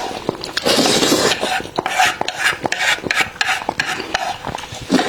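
Close-miked eating: wet chewing and mouth sounds in quick, irregular bursts, with sharp little clicks in between.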